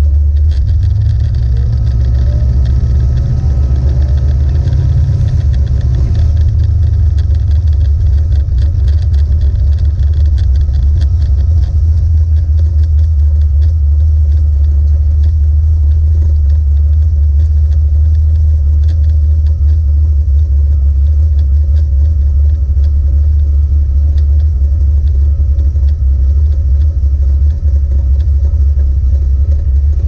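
A 1970 Plymouth Duster's 440 big-block V8, heard from inside the cabin, running loud at low revs as the car rolls slowly. The revs rise slightly in the first few seconds, then settle into a steady low rumble.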